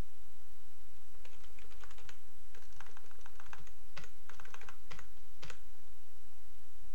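Typing on a computer keyboard: clusters of quick keystrokes from about a second in until about five and a half seconds in, over a steady low hum.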